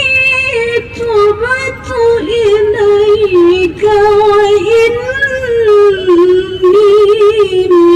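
A woman chanting Quran recitation (tilawah) in the melodic contest style. She holds long notes with quick ornamental wavers and pitch turns, pausing only briefly between phrases.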